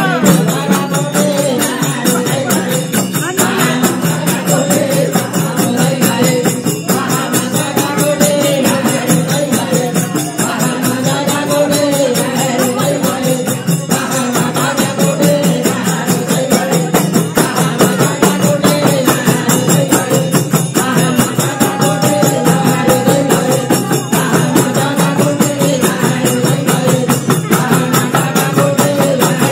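Live Nepali bhajan music: voices singing a chant-like melody over a held harmonium drone, with a madal hand drum and jingling percussion keeping a steady dance beat.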